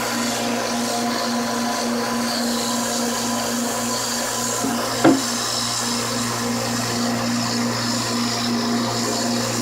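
Electric knife sharpener's motor running steadily with an even hum, and one brief knock about five seconds in.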